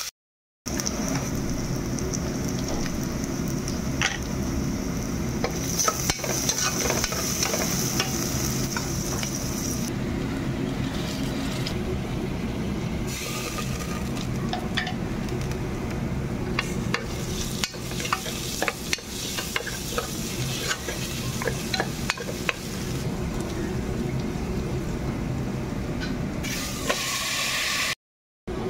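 Chopped onions sizzling in hot oil in an aluminium pressure cooker, with a spoon clicking and scraping against the pot as they are stirred.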